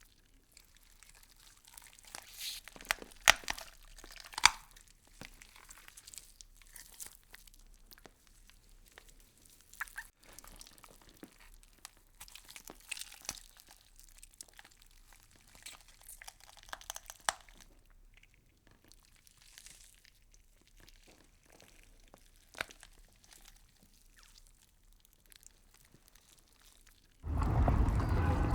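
Faint, scattered crunching and crackling clicks, like a leaf-eating insect chewing through a leaf, with the sharpest clicks about three to four seconds in. A louder, steady noise sets in near the end.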